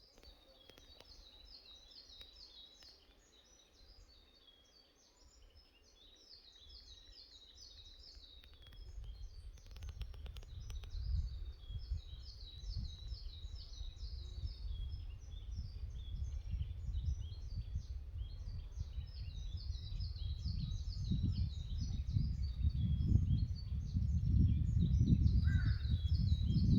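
Small songbirds singing short high phrases over and over, with low wind noise that comes in about a third of the way through and grows stronger, gusting loudest near the end.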